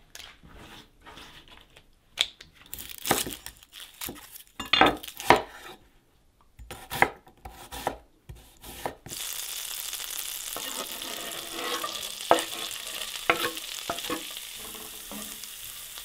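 A knife knocking on a wooden cutting board at uneven intervals as shallot and garlic are chopped. About nine seconds in, minced shallot and garlic in butter start sizzling steadily in a cast iron skillet, with the light clicks of a wooden spatula stirring them.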